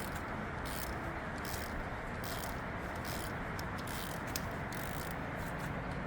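Steady background noise with faint, scattered scrapes and light clicks of hand tools working bolts on the engine.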